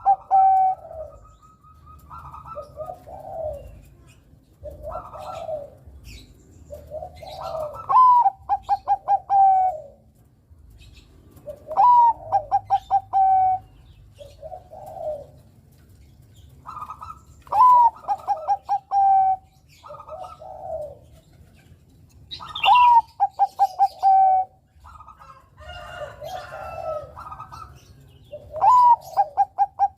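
Zebra dove (perkutut, Bangkok type) singing its cooing song. About every five seconds comes a loud phrase: a rising note, a quick stutter of short coos and a held final note. Softer coos fall between the phrases.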